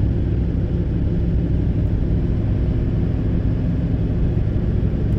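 Steady drone of a Duramax diesel pickup's engine and tyre rumble heard inside the cab while driving at road speed.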